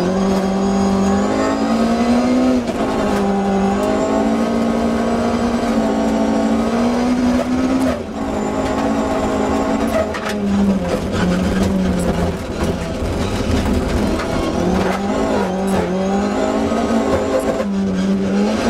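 BMW 320i E30 rally car's straight-six engine at full throttle, heard from inside the cabin. It climbs and holds high revs, lifts off briefly about eight seconds in, then rises and falls through gearchanges. Gravel clatters from the tyres throughout.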